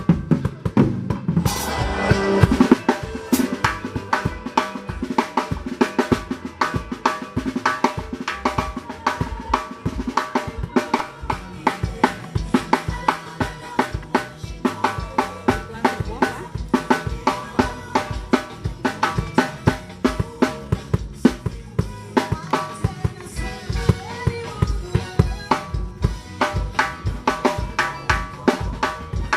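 Drum kit played in a fast, driving groove, with bass drum, snare and rimshots in a dense steady rhythm, of the sebene kind. A cymbal crash comes about a second and a half in.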